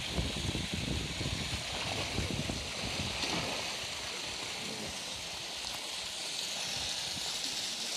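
Pool water splashing and churning as a polar bear dives and rolls, strongest in the first half, over a steady rush of running water.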